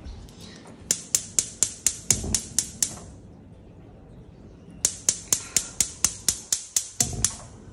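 Gas cooktop's spark igniter clicking rapidly, about four clicks a second, in two runs of a couple of seconds each with a short pause between them, as the burner is lit.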